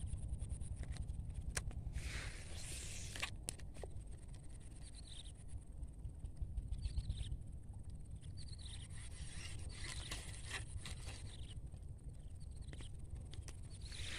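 Outdoor ambience: a steady low rumble, a few sharp clicks, and short, high, falling chirps repeated every second or two.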